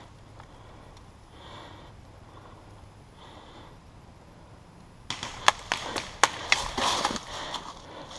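Faint breathing and sniffing, then from about five seconds in a quick run of sharp crunching footfalls over dry ground and brush, the wearer moving fast.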